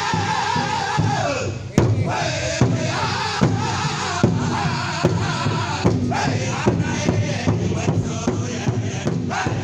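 Powwow drum group singing around a big bass drum, the men striking it together with padded drumsticks in a steady beat of a little more than one stroke a second. A long held sung note slides down and breaks off about one and a half seconds in, then the singing carries on over the drumbeats.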